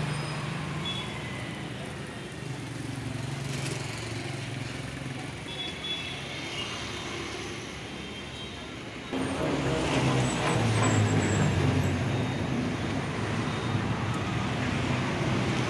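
Busy street background: road traffic running steadily with indistinct voices. It gets suddenly louder about nine seconds in.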